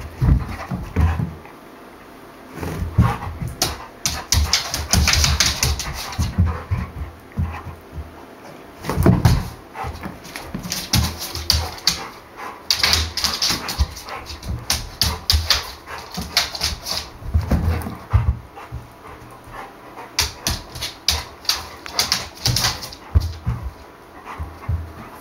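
A bullmastiff-rottweiler cross dog chasing a spot of reflected light, its paws and claws scrabbling on the rug and floor in three flurries of rapid scratching, with whining and a few barks.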